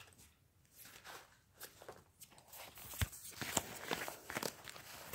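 Paper and clear plastic sticker sleeves rustling and crinkling as they are handled, with a sharp knock about three seconds in.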